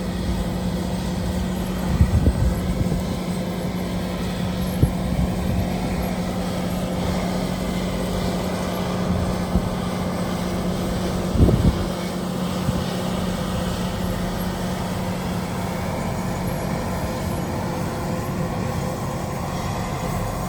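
Large four-wheel-drive farm tractor's diesel engine running steadily under load while pulling an air drill, a constant droning hum. Wind buffets the microphone in low rumbles about two seconds in and again near the middle.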